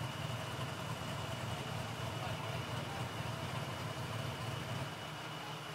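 A vehicle engine idling steadily, a low even rumble, with a thin steady high whine over it.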